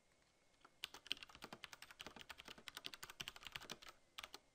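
Faint, rapid computer-keyboard typing: quick keystroke clicks at about ten a second, starting about a second in and stopping near four seconds, then two more keystrokes shortly after.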